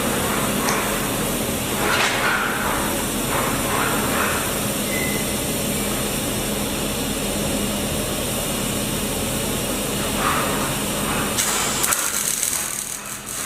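Electric arc welding on a steel pipe: a steady hiss with a faint hum, which drops away near the end.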